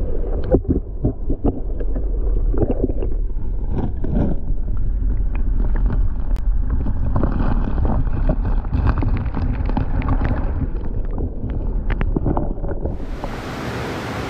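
A mountain trout stream heard underwater: a low, muffled rush with many scattered small clicks and ticks. Near the end it changes to the brighter open-air rush of the creek.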